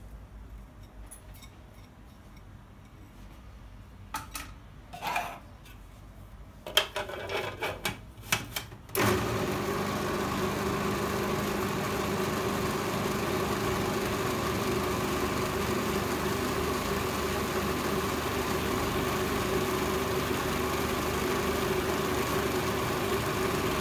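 A few light knocks and clatters, then about nine seconds in an electric kitchen mixer starts and runs steadily, mixing pizza dough.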